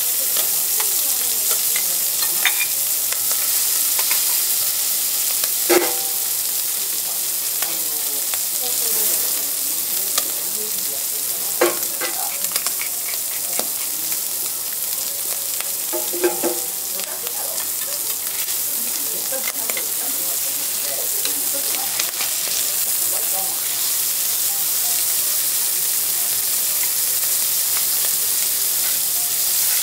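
Abalone, tiger prawns and snow peas sizzling steadily on a hot teppanyaki iron griddle. A few sharp metal clinks of the chef's knife and spatula on the griddle come about six, twelve and sixteen seconds in.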